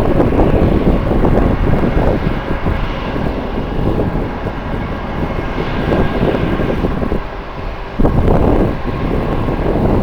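Jet airliner engine noise mixed with strong wind buffeting the microphone. The level swells and dips, with a sudden rise about eight seconds in.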